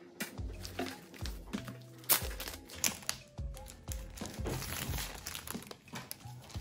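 Clear plastic wrap crinkling in irregular crackles as it is peeled off a shrink-wrapped tablet case, the loudest crackle about two seconds in. Background music with a steady low beat runs under it.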